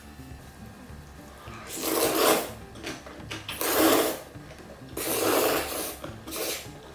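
Jjajangmyeon noodles in black bean sauce being slurped: three long, loud slurps about a second and a half apart, then a short one near the end.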